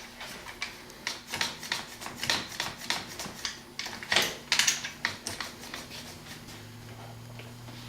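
Irregular clicks and knocks of a clamp being fitted and tightened on a Kydex book press.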